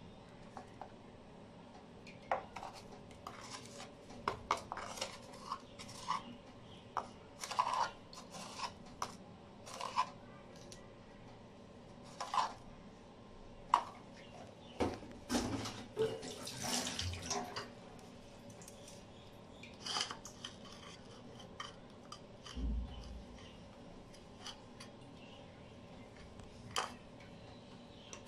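Kitchen handling sounds: scattered clinks and taps of utensils and containers as salt and spices are added to a bowl of flour, with a denser run of clatter around the middle and a low thump near the end.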